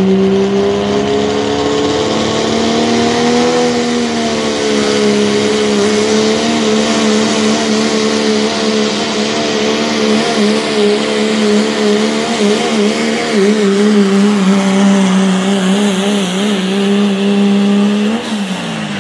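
Diesel pull truck's engine running flat out on a pull, black smoke pouring from the stack, its note held steady and wavering a little through the middle. Just before the end the pitch falls away sharply as the throttle comes off at the end of the run.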